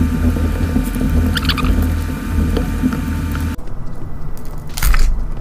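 Plastic pry picks working a glued-in phone battery loose: a few brief squeaks and a sharp click near the end, over a steady hum that cuts off suddenly about three and a half seconds in.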